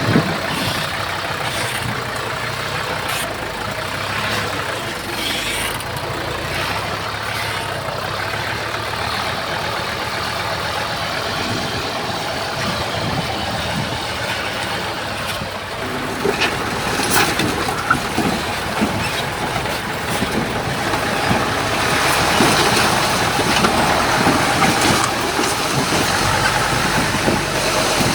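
Heavy diesel earthmoving machinery running steadily, with a few sharp metallic clanks or knocks about two-thirds of the way through, then growing louder near the end.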